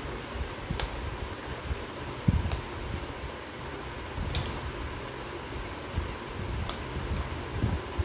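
Sharp clicks and a few low knocks of a hand wire stripper and wires being worked while wiring an electrical control panel, scattered several times, over a steady whir in the background.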